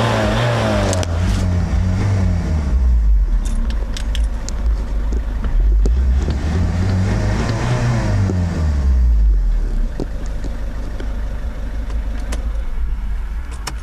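Peugeot 307 SW's 2.0 HDi 136 hp four-cylinder turbodiesel, dropping back from a rev at the start, revved again about six seconds in and released, then idling for the last few seconds. A few light clicks near the end.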